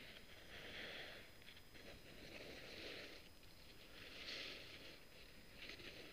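Faint, rhythmic breathing of a skier at rest, a soft breath about every second and a half.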